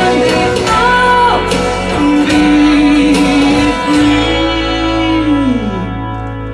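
Slow rock ballad played with guitar to the fore, carrying long held notes; the last held note slides down and the music thins out near the end.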